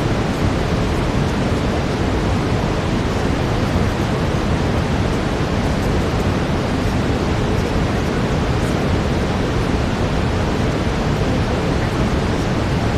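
Steady brown noise: an even, unbroken hiss weighted toward the low end.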